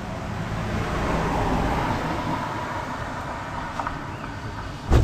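Chang'an Suzuki Antelope's engine being cranked by the starter for a few seconds without catching, as it struggles to start in the cold at high altitude. A sharp knock just before the end is the loudest sound.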